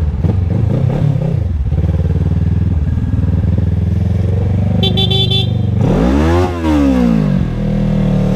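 Motorcycle engine running steadily on the move. A vehicle horn gives a short burst of beeps about five seconds in, and just after that the engine's pitch drops and then climbs again as it is revved back up.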